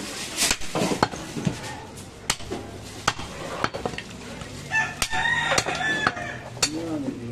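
Heavy butcher's cleaver chopping a goat leg into pieces on a wooden stump block: sharp, irregular chops roughly once a second, each blade striking through meat and bone into the wood. A drawn-out pitched call rises over the chopping about five seconds in.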